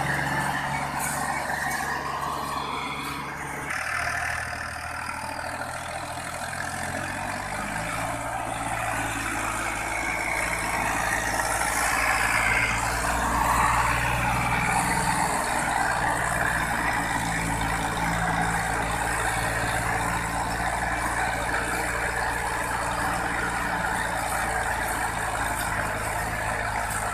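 Farm tractor engine running hard under load while hauling a heavily overloaded sugarcane trailer. Its steady note shifts in pitch a couple of times early on, over a rough layer of mechanical and ground noise.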